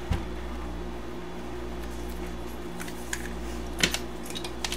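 A few light clicks and taps from alligator-clip jumper leads being handled and clipped on, the sharpest near the end, over a steady low electrical hum.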